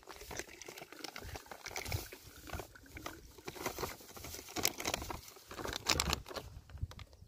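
Water-soluble 13:40:13 fertiliser powder pouring from a sack into a plastic drum of water, an irregular pattering and crackling, as 3 kg is dissolved into 200 litres to make up a drench.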